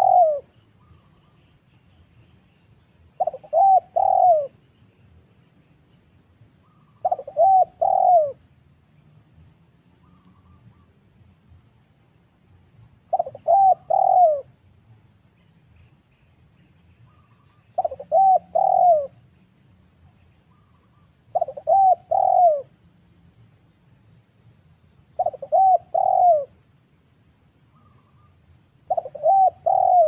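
Spotted dove (tekukur) cooing: short phrases of two or three quick coos, repeated every three to six seconds.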